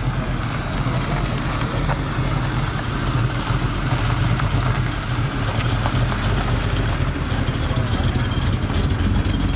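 Chrysler Newport Royal's V8 engine idling steadily, with a low, even hum.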